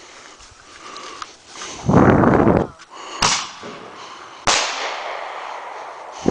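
Consumer fireworks going off: a short, loud rushing noise about two seconds in, then sharp bangs a little over a second apart, and one more bang near the end.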